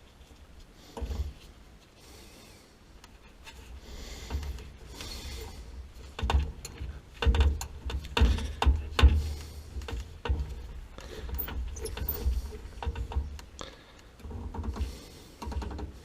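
Irregular knocks, clunks and rubbing from hands and tools at work, with a run of heavier thumps in the middle.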